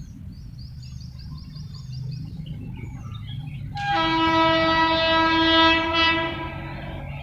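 Train horn sounding one long blast of about two and a half seconds over the low rumble of a train, with bird chirps before the horn.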